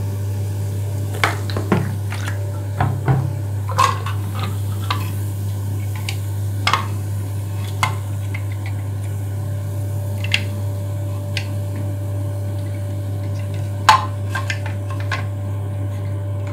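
Plastic parts of a Geberit concealed-cistern fill valve (ball cock) and its float being handled, making scattered clicks and knocks against a ceramic wash basin, with the sharpest knock near the end. A steady low hum runs underneath.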